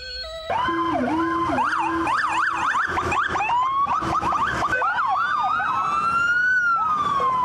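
Several electronic police-style sirens wailing and yelping over one another, their pitches sweeping up and down. They start about half a second in, and near the end one long tone slides steadily down.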